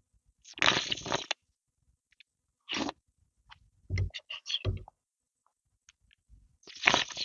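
Chicken and mushroom soup slurped off a spoon: two long slurps, about half a second in and again near the end, with shorter wet mouth sounds and swallows in between.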